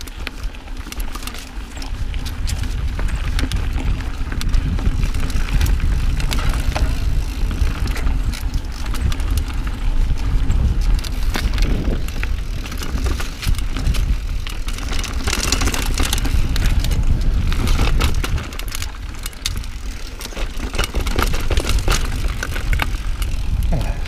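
Giant Trance 27.5 full-suspension mountain bike riding down a dirt singletrack: a steady low rumble of wind and tyres rolling, broken by frequent clicks and rattles from the bike over bumps.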